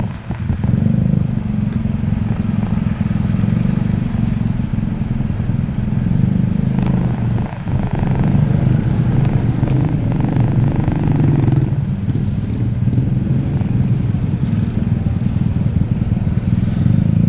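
Motorcycle engine running steadily on the road, with a constant low drone throughout.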